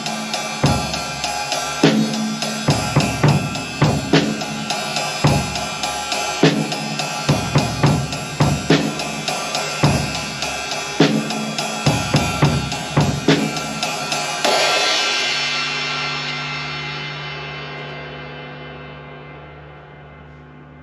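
Drum kit groove played with sticks on a vintage Paiste Formula 602 16-inch flat ride cymbal, with bass drum and snare, for about fourteen seconds. It ends on one last hit left to ring out and fade slowly.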